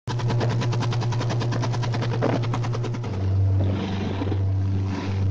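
Motorboat engine running at speed with a fast, even pulsing hum over the rush of the wake; about three seconds in, the engine note drops lower.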